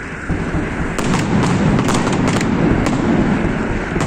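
Fireworks display going off: a rolling din of booms with many sharp crackling reports, growing denser from about a second in.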